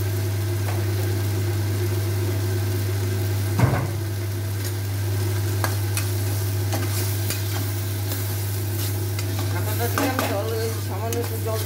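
Metal spatula stirring and scraping a thick dried-fish and vegetable curry in a nonstick wok, with a light sizzle over a steady low hum. One sharp knock of the spatula on the pan about three and a half seconds in, and quicker scraping near the end.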